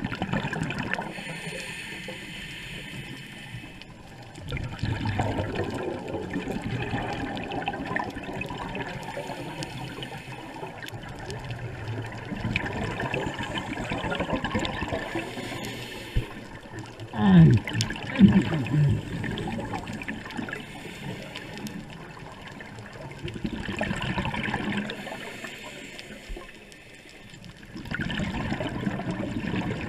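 Scuba diver's breathing through a regulator underwater: rushing, bubbling exhalations and hissing breaths that come and go in cycles, with a few loud low bubbling gurgles a little past the middle.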